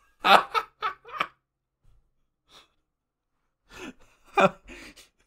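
A person laughing in short breathy bursts and gasps, falling quiet for a couple of seconds, then laughing again near the end.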